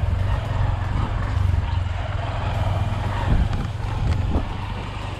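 Motorbike engine running as the bike rides a rough dirt track, with a steady low rumble and noise from the ride. A couple of sharp knocks come from the bumpy ground about three and four seconds in, and the sound eases a little near the end.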